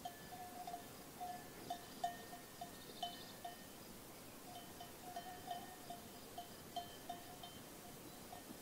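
Sheep bells on a grazing flock clinking at uneven intervals, each a short ring at the same pitch.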